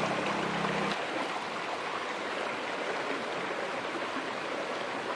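Shallow, fast-flowing stream rushing and splashing over rocks, a steady even rush of water. A low steady hum underlies it for the first second and then cuts off.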